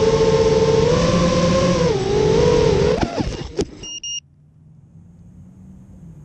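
FPV quadcopter's brushless motors and propellers whining over a wash of wind noise on the onboard camera, the pitch shifting with throttle. About three seconds in the motors spin down with a falling pitch, followed by a knock and a short high electronic beep, then only a faint low hum.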